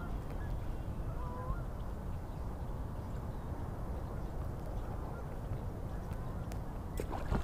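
A few faint, short waterfowl honks in the distance over a steady low rumble; a few light clicks near the end.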